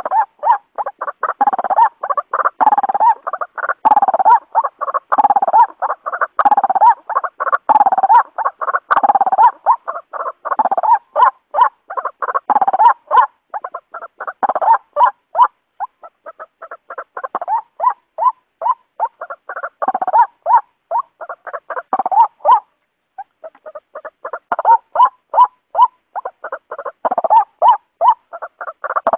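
Waterhen calling: a rapid run of repeated notes that swell into loud phrases about once a second, with a brief break about three quarters of the way through.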